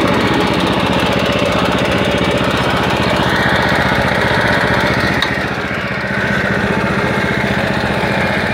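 Husqvarna 150BT backpack leaf blower's 50.2cc two-stroke engine running steadily, briefly quieter about five seconds in before picking back up.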